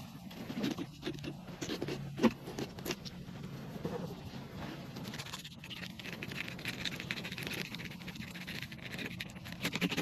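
Irregular pattering and ticking of raindrops hitting the camera housing, mixed with a fillet knife scraping and slicing through a red snapper on a plastic cleaning board. The sharpest tick comes about two seconds in.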